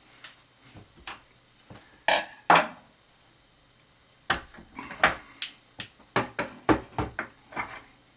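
A knife-maker's vise being handled on a workbench: two sharp knocks about two seconds in, then a run of irregular clanks and knocks.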